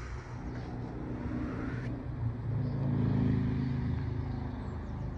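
A motor engine running nearby: a low, steady hum that grows louder, peaks about three seconds in, then eases off, like a vehicle passing.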